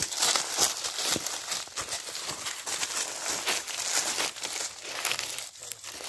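Footsteps of several people crunching through dry fallen leaves over loose stones, an irregular run of crackling steps.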